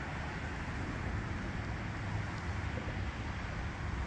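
BR 52 steam locomotive shunting slowly: a steady hiss over a low rumble, with no distinct exhaust beats, and wind buffeting the microphone.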